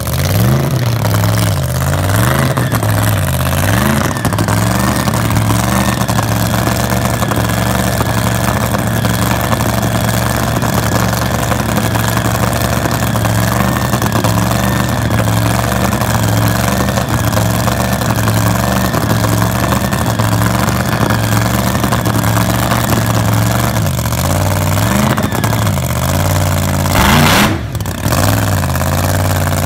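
Funny car drag racer's V8 engine idling loudly and unevenly, with a few short rises and falls in revs, and one sharp, loud rev a little before the end that drops away quickly.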